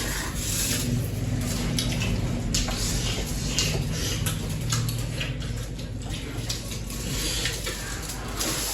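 Close-up eating sounds: chewing and small mouth clicks over a steady hiss.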